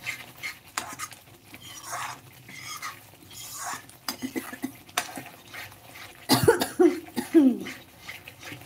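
Metal spatula scraping and stirring thick masala paste around a metal kadhai in short irregular strokes. About six seconds in, a loud voice-like sound with a wavering pitch rises over the stirring for about a second and a half.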